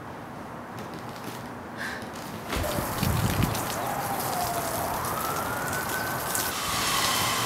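Water spraying from a garden hose, starting suddenly about two and a half seconds in as a steady hiss. Over it, a tone glides slowly up and down.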